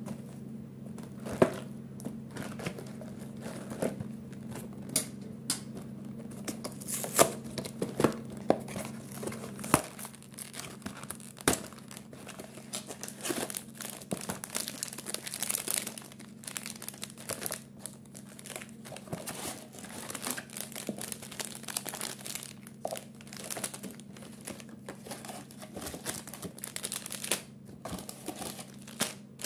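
Plastic wrappers of individually packed Orion Choco Pie cakes crinkling as they are pulled out of their cardboard box and dropped on a table, with tearing and handling of the cardboard box and scattered sharp clicks. A steady low hum runs underneath.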